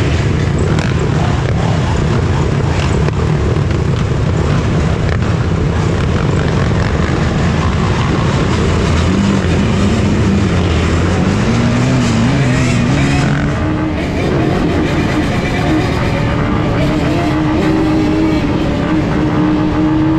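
Dirt bike engines running. About nine seconds in, a close engine's note rises and wavers as the bike gets under way, then holds a steady higher pitch while riding.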